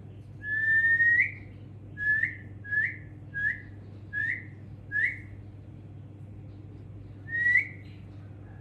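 A person whistling to get a baby's attention: one long note rising in pitch, then five short chirps each bending upward, and one more rising note near the end.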